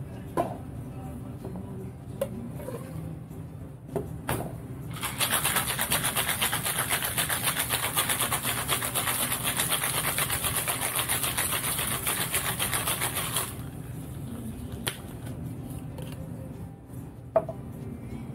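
Metal cocktail shaker shaken hard for about eight seconds, a fast, steady rattle that starts a few seconds in and stops abruptly, with clicks and knocks of the tins being handled before and after and one sharp knock near the end.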